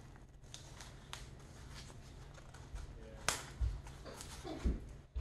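A fixed-blade knife being drawn from its cheap black fabric sheath and handled: light rustling and small clicks, with one sharp click about three seconds in and a couple of low thumps after it.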